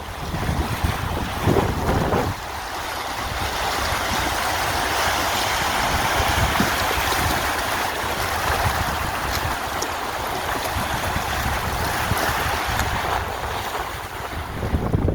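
Sea waves breaking and washing over the shore, with wind rumbling on the microphone. A long hissing wash of surf builds about two seconds in and holds until near the end.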